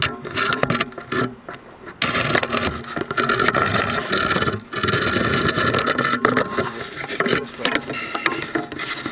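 Handling noise close to the microphone: scattered knocks and rubbing, then from about two seconds in a steady loud rubbing and scraping as the camera is moved about.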